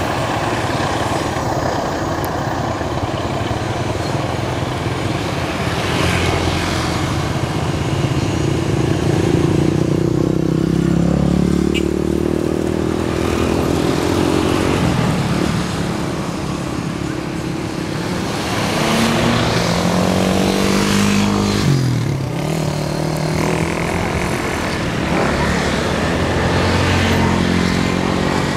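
An engine running over a steady rumble, its pitch rising and falling again and again. Twice, about 11 and 22 seconds in, the pitch drops sharply and climbs back.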